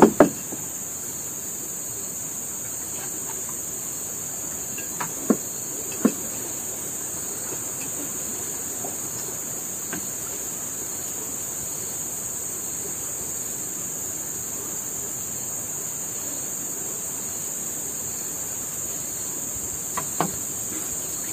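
Steady high-pitched chorus of insects, with a few sharp clinks of plates and utensils: one at the start, two around five and six seconds in, and a couple near the end.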